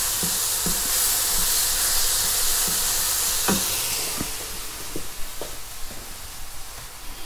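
Spice paste sizzling as it fries in oil in a frying pan, with scattered knocks of a spatula and utensils. The paste is being cooked through until fragrant, before the water goes in. The sizzle is strong at first and dies down about four seconds in.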